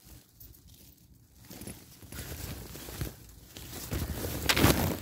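Nylon fabric of a pop-up tent rustling and crinkling as it is handled from inside, starting about a second and a half in and getting louder near the end, with a few sharp crackles.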